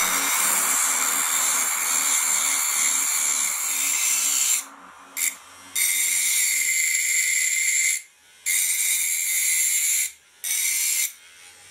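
12 V 775 DC motor spinning a small abrasive cutting disc, grinding a metal strip with a steady high hiss. The grinding drops out briefly three times, about five, eight and ten seconds in, as the strip comes off the disc.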